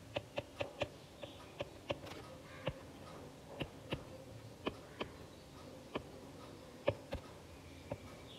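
Stylus tapping and clicking on an iPad's glass screen while drawing and picking tools: a quick run of four light taps in the first second, then single taps scattered irregularly.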